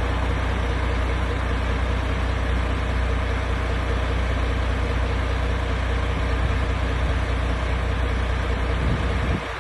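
MAN TGX 18.500's straight-six diesel engine idling steadily, with a deep, even hum; the sound drops off suddenly near the end.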